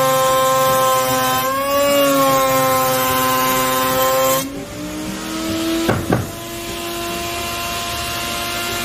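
Table-mounted router spinning a drawer-pull bit as a softwood board is fed across it: a high motor whine with cutting noise, its pitch sagging under the load. About four and a half seconds in the cutting noise stops and the motor speeds up to a steadier, higher whine, followed by two quick knocks.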